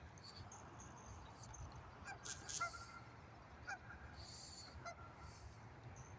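Faint waterfowl calling in scattered short honks, about five in all, over a steady low rumble.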